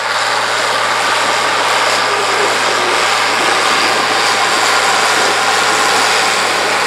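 International 1566 tractor's turbocharged six-cylinder diesel running steadily under load, pulling a 16-row corn planter through the field, a low engine hum under a broad hiss.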